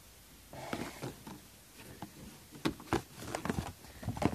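Paper cards and plastic-wrapped packages rustling and lightly knocking as they are handled in a cardboard box: a run of irregular rustles and light knocks, busiest in the second half.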